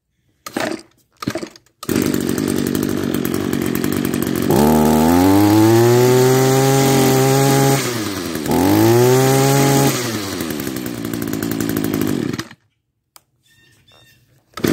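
Echo SRM-210 string trimmer's small two-stroke engine. It gives two short sputters, catches and runs, and is revved up twice with the throttle, the pitch climbing and holding each time before dropping back. About twelve seconds in it cuts off abruptly, shut down by its kill switch, which now works with its wires spliced.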